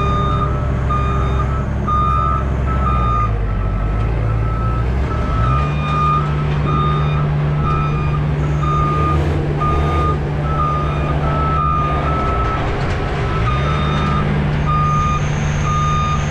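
Platform lift moving, its motion alarm giving a steady repeating beep over a running engine. The engine speeds up about five seconds in and again near the end.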